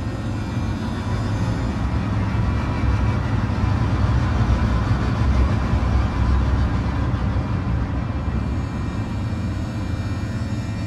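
A dense, low rumbling drone from the film's horror score or sound design, swelling in the middle and easing near the end.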